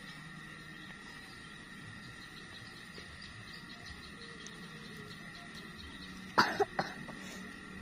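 A person coughs near the end, one sharp burst followed by two quicker, weaker ones, over a quiet steady outdoor background with a thin high tone.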